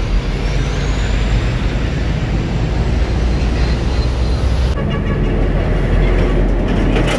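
Busy road traffic: a steady low rumble of passing motorbikes and cars. The high hiss drops away abruptly about five seconds in.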